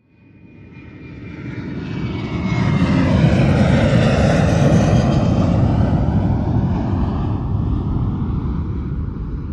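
Jet airliner flying past: an engine rumble swells up from silence over about three seconds, with a thin whine gliding down in pitch as it comes by, then slowly fades.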